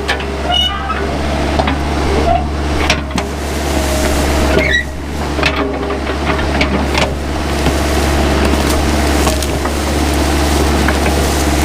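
Mini excavator's diesel engine running steadily under work, with scattered clicks and a few short squeaks from the machine's arm and brush.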